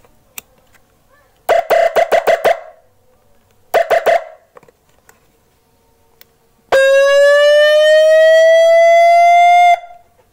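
A 9-tone electronic motorcycle siren sounding through a 15-watt TOA horn speaker while its tones are tested. A fast run of short beeps comes first, then a shorter run, then one long rising wail of about three seconds that cuts off suddenly.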